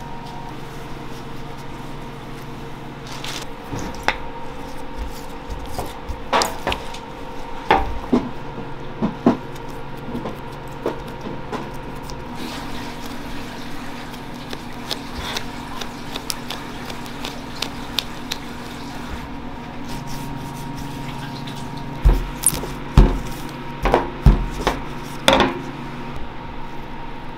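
Bagel dough being pressed and flattened by gloved hands on a stainless steel worktable: scattered soft pats and taps, then a run of louder knocks against the table near the end, over a steady kitchen machine hum.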